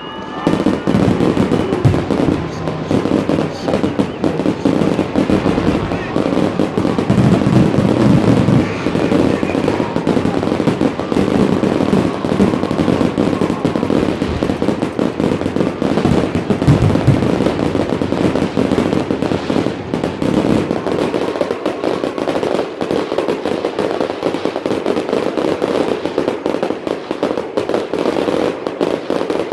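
Fireworks display going off without a break: rapid bangs and crackles, one after another.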